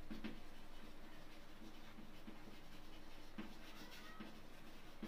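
Chalk writing on a chalkboard: faint scratching strokes and light taps of the chalk as a word is written out.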